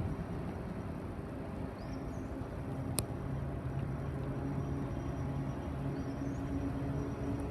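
82 class diesel-electric locomotives idling with a steady low hum, standing while the crew changes over. A single sharp click about three seconds in.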